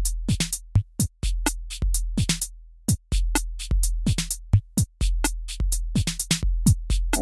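Electronic music beat: a busy pattern of sharp drum-machine hits over a deep, sustained sub-bass, with no melody.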